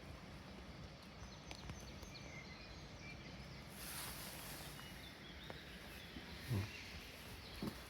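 Quiet outdoor ambience with a few faint, short bird chirps. A brief hiss comes about four seconds in, and two soft thumps come near the end.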